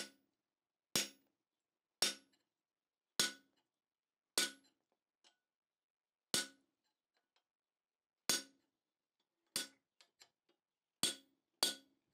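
Hammer blows on a hand-held hot slitting chisel driving into a red-hot steel bar on the anvil: about ten sharp metallic strikes, roughly one a second, with a couple of longer pauses between them.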